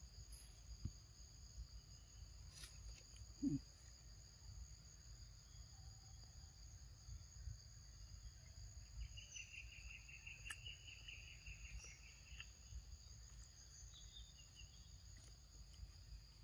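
Faint, steady insect chorus at two constant high pitches. About three and a half seconds in there is one short, low, falling voice-like sound, and from about nine to twelve seconds a rapid chirping trill.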